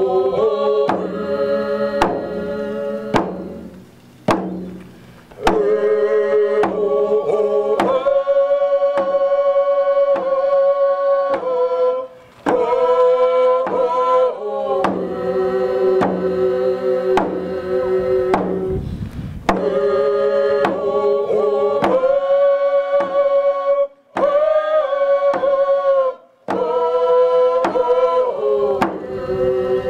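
A group of voices singing together to a steady beat on hand-held frame drums, the song broken by short pauses between phrases.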